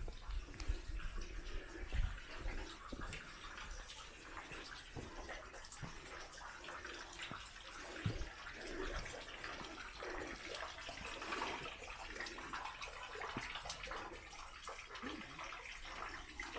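Water running from a bamboo spout into the basin of a temple purification fountain (temizuya), a steady splashing trickle, with a few soft thumps.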